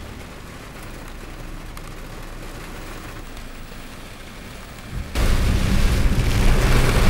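A quiet, steady background hiss. About five seconds in it jumps abruptly to heavy rain drumming on a moving car, over a deep low rumble.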